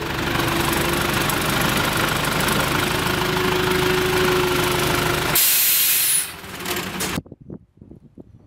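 A narrow-gauge passenger train running, heard from an open carriage: a steady engine note and running noise. About five seconds in comes a short burst of hissing; the sound then drops and cuts off abruptly near seven seconds.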